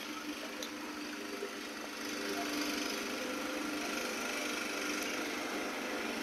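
Steady mechanical hum of a running motor, a little louder from about two seconds in.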